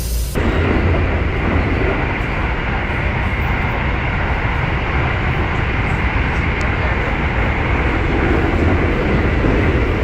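Train running, heard as a steady rumble and rush of noise that begins abruptly about half a second in.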